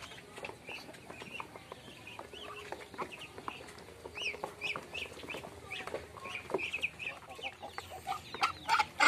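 Feeding Muscovy ducks and chickens giving many short, high chirping and clucking calls. Near the end come sharp taps and clatter as bills peck into a metal feed bowl.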